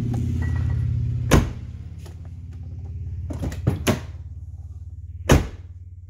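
Lincoln Town Car door being shut twice with a solid thud, about a second in and again near the end, with lighter clicks of the handle and latch in between. It latches with little effort and no click now that the door striker bolt has a new bushing. A steady low hum runs underneath.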